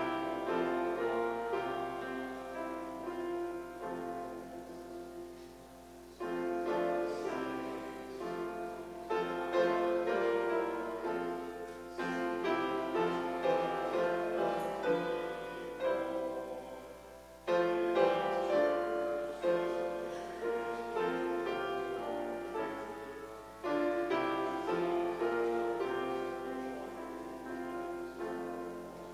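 Piano playing a slow hymn tune in full chords that are struck and left to ring and fade, with a new phrase starting every few seconds.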